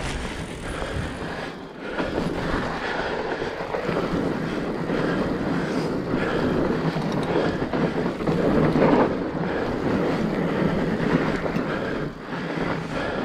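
A fat bike ridden along a forest trail: a steady rushing of tyre and trail noise with rattles from the bike, swelling louder about two-thirds of the way in, with wind on the microphone.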